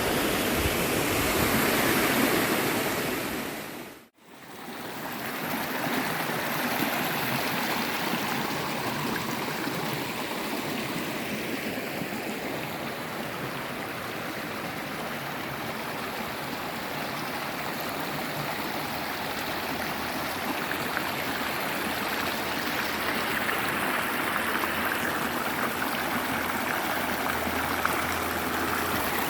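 Steady rush of water from a waterfall and river. It fades out to near silence for a moment about four seconds in, then comes back and runs on evenly.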